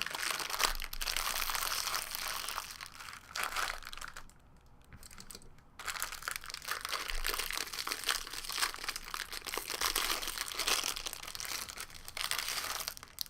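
Plastic wrapping of trading-card packs crinkling and tearing as the packs are opened by hand, with a brief quieter pause about four seconds in.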